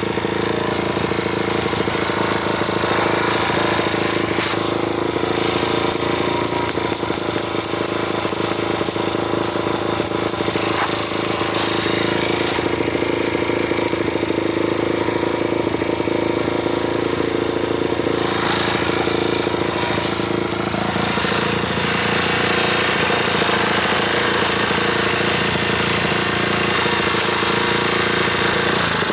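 Motorcycle engine running steadily at road speed, with wind rush, picked up by a loose camera hanging against the bike's fairing. For several seconds near the middle comes a rapid run of light clicks.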